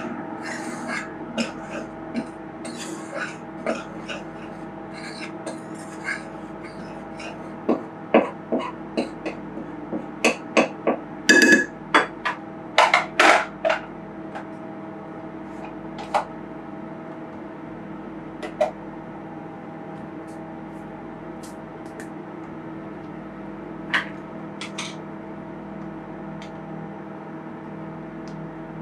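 Microwave oven running with a steady hum, under scattered clinks and knocks of hands and a spoon working flour in a glass bowl. There is a flurry of louder clatters about ten to fourteen seconds in.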